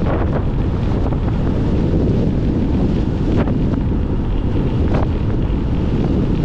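Loud wind buffeting the microphone of a moving bicycle, a steady low rush, with a few short knocks about halfway through and again near the end.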